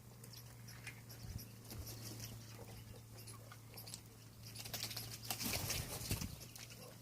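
Peafowl pecking at grain on the ground: scattered light taps and clicks that thicken into a dense flurry about five seconds in, over a steady low hum.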